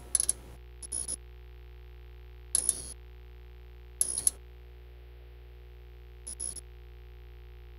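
Intro sound effect: a steady low electronic drone with short crackling, clicking bursts every second or two, five in all, cutting off suddenly near the end.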